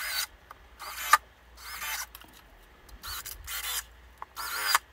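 Cordless drill-driver running in about five short bursts, each under a second, as it drives screws through metal corner brackets into a melamine cabinet carcass. The motor pitch rises and falls within each burst.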